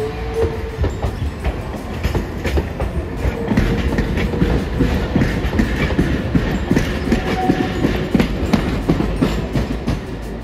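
Hiroden tram rolling over the pointwork and crossing rails, its wheels clacking and knocking over the joints and frogs in a dense irregular run over a low rumble.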